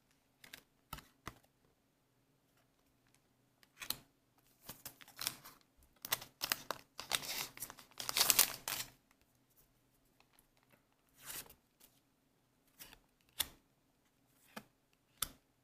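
Weiss Schwarz trading cards and their booster-pack wrapper being handled: scattered rustling and crinkling with small clicks, busiest in the middle few seconds.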